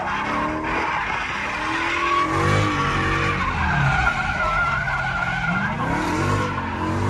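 2016 Dodge Challenger Hellcat's supercharged 6.2-litre V8 revving up and down repeatedly as the car is drifted, heard from inside the cabin, with the tyres skidding. A steady high tyre squeal runs from about three and a half to six seconds in.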